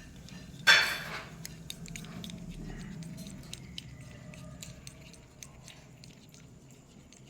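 Hand wash and glue being stirred together in a bowl for slime, with small wet, squishy clicks. One short, loud noisy burst comes about a second in.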